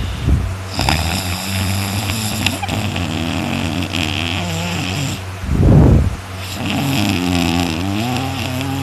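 A person snoring loudly in sleep: a long, wavering snore, then a short, louder noisy breath just past halfway, then another wavering snore near the end.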